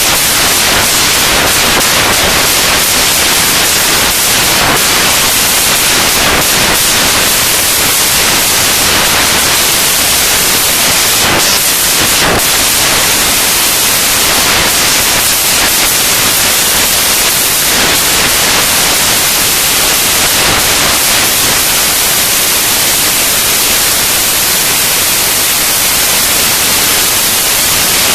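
Loud, steady static-like hiss, strongest in the upper range, with no tune or beat in it.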